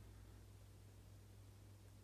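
Near silence: room tone with a low steady hum.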